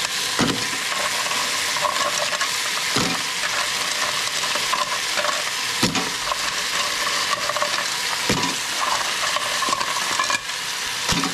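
Food frying and sizzling in a hot pan while it is stirred. A spatula knocks and scrapes against the pan about every two to three seconds.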